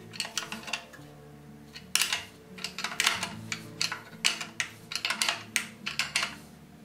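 Ratchet wrench clicking in short quick runs as a nut is tightened on the iron of a wooden wagon brake beam, over quiet background music.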